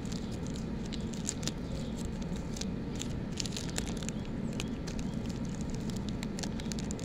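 Taped paper mailer crinkling and rustling as hands work it open, a scattered run of small crackles over a steady low rumble.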